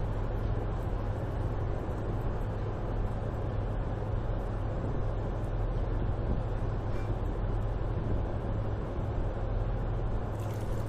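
Steady low drone of a ship's engines, with a thin stream of water from an electric jug-top dispenser pump running into a mug.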